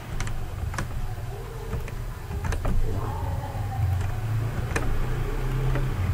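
Several sharp clicks of a computer mouse and keyboard, roughly a second apart, over a steady low hum.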